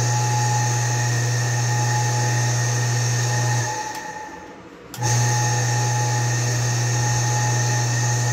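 Half-HP peripheral water pump's electric motor running with a steady low hum and a high whine. It is switched off about three and a half seconds in and winds down, then switched on again about five seconds in, coming up to speed at once and running steadily.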